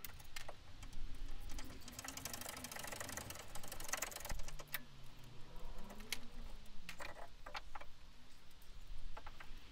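Ratchet spanner clicking fast for about two seconds as the bolts of a Brembo rear brake caliper are undone, with scattered metal clinks and knocks as the caliper is worked off the disc.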